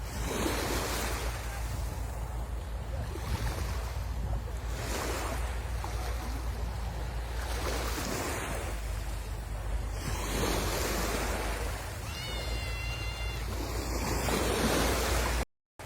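Sea waves breaking and washing up the shore, the hiss surging every second or two, over a steady low wind rumble on the microphone. A brief high whistle-like tone sounds about three-quarters of the way through.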